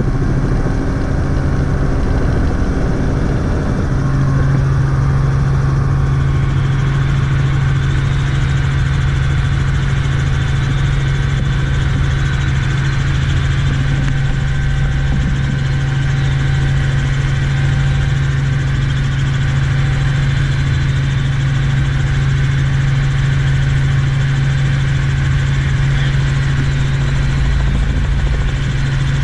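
Steady drone of a light helicopter in flight, heard from inside the cabin: a strong low hum from the engine and rotors over a rushing noise. The hum grows stronger about four seconds in.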